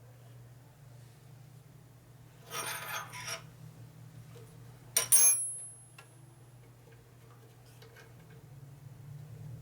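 Metal hardware and tools being handled on a workbench: a short rattling clatter, then a sharp metal clank with a high ring that fades over a second or so, over a steady low hum.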